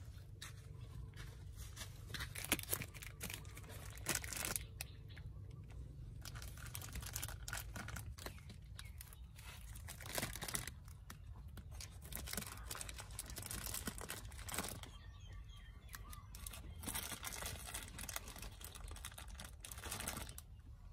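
Oyster mushrooms being pulled and torn off plastic grow bags by hand, with crinkling of the bag plastic and soft irregular tearing and rustling as the pickings go into a wicker basket.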